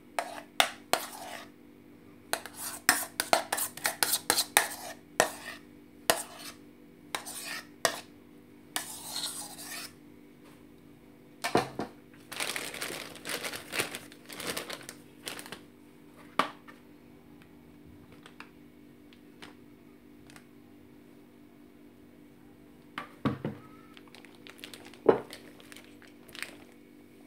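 A spoon scraping and clinking against a mixing bowl in quick irregular strokes as thick cream is scooped into a plastic piping bag, with stretches of the plastic bag crinkling. A few separate knocks near the end.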